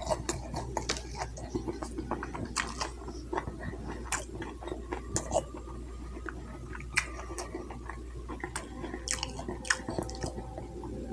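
Close-miked chewing, with many irregular wet mouth clicks and smacks as a person eats.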